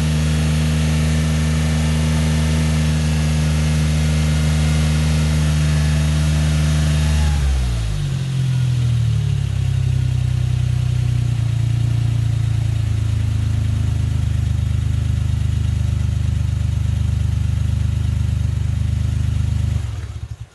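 Exhaust note of a Suzuki Jimny JB23's 660 cc turbocharged three-cylinder engine through a K-Products Excel II muffler built to meet the new noise regulations. The engine is held at raised revs, drops back to a steady idle about seven seconds in, and stops abruptly near the end.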